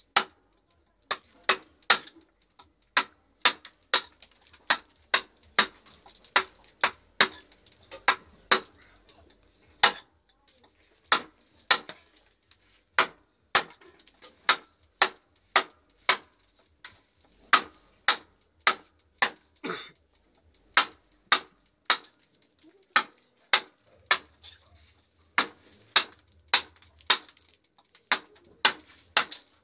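Wooden mallet striking a wood-carving chisel driven into a log: a long run of sharp knocks, a little under two a second, with brief pauses between bursts of blows.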